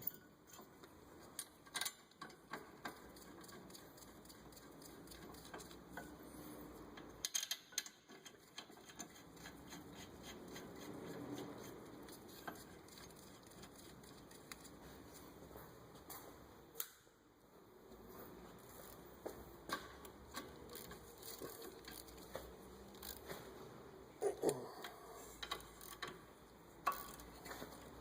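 Faint, scattered light clicks and taps of brake parts and hand tools being handled.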